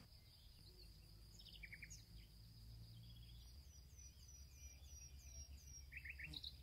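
Faint birdsong: scattered short chirps, and about halfway through a quick run of about eight falling notes, over a steady high thin tone and a low rumble.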